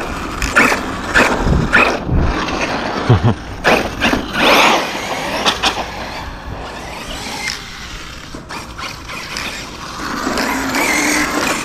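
Arrma Kraton 6S V6 RC monster truck running hard in bursts: brushless motor and gear drivetrain whirring and grinding with tyre noise, broken by several sharp knocks.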